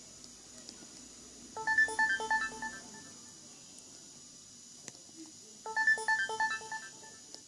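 Sony Ericsson W810i ringtone playing: a quick run of about half a dozen short electronic notes, heard twice about four seconds apart.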